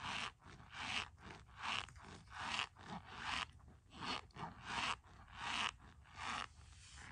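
A plastic spoon scraping and crunching into a cup packed with shaved soap, in a steady rhythm of about nine strokes, roughly one every three-quarters of a second, stopping near the end.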